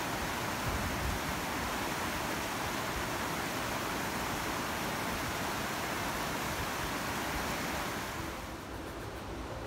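River rapids rushing steadily over rock, a dense even roar of white water that drops away near the end.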